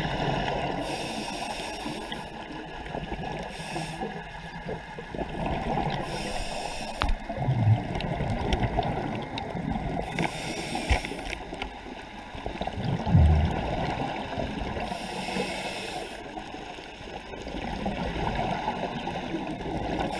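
Scuba diver breathing through a regulator underwater: a hiss and bubbly gurgle about every four to five seconds, with two dull thumps in the middle.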